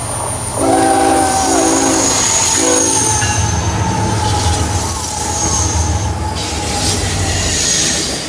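A BNSF freight train's diesel locomotives sound a multi-note air horn three times, two long blasts and a short one. The locomotives then pass close by with a loud low engine rumble and a thin, high wheel squeal.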